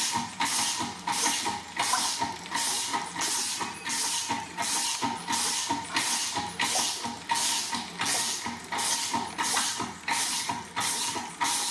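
BMW R 60/7 boxer-twin engine making a rhythmic mechanical clatter, pulsing about twice a second over a steady whine. This is the engine noise the workshop ties to the timing chain.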